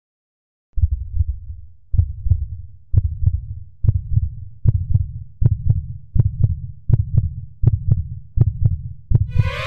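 Heartbeat sound effect: deep lub-dub double thumps starting about a second in and speeding up steadily, from under one beat a second to about one and a half a second. Music begins to swell in just at the end.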